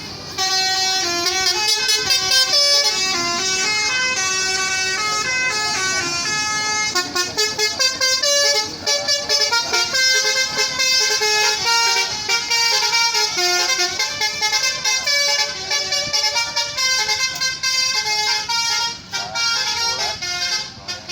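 Tour bus "telolet" multi-tone horn playing a tune: a long run of stepping horn notes, with quick staccato toots about a third of the way in and again near the end.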